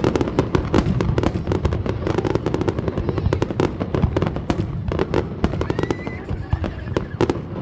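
Aerial fireworks going off in a dense barrage: many overlapping bangs and crackles over a continuous low rumble, with a brief faint whistle about six seconds in.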